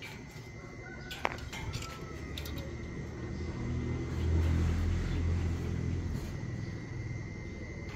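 A low engine hum swells and fades in the middle, with a steady high-pitched whine throughout and a single sharp click a little over a second in.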